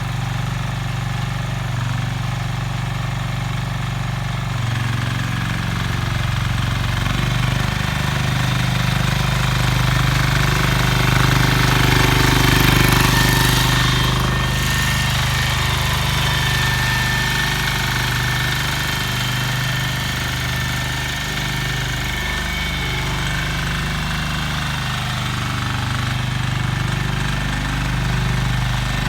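Small engine of a motor hoe (rotary tiller) running steadily with a rattling, knocking texture. It gets louder and busier around the middle.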